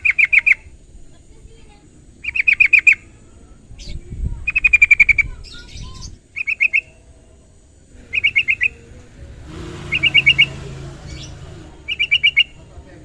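Yellow-vented bulbul (trucukan) calling in short bursts of rapid repeated notes, each burst about half a second long, repeated roughly every two seconds.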